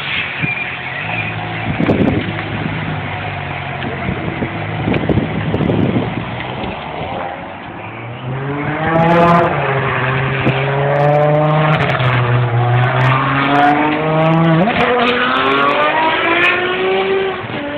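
High-performance sports car engine running, with two short blips in the first half. About eight seconds in it gets louder and revs hard, its pitch rising and falling several times and sweeping sharply upward near the end.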